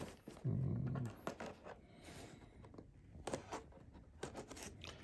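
Light rustling and scattered small clicks of a cardboard toy box being handled while a razor blade slits the packing tape on its bottom, with a short low hum about half a second in.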